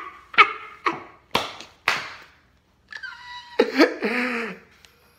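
A man laughing hard, slapping a hand down four times about half a second apart, then letting out a long drawn-out laugh near the end.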